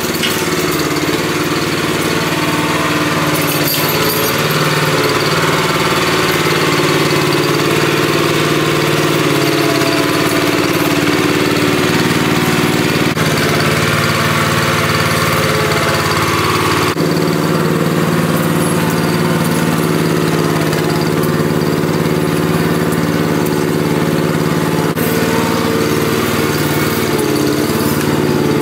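Small gasoline engine of a motorized round-bale cart running steadily at constant speed. Its tone shifts abruptly a few times.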